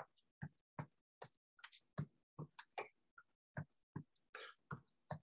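Faint, short footfalls of someone marching in place, about two or three a second and slightly uneven.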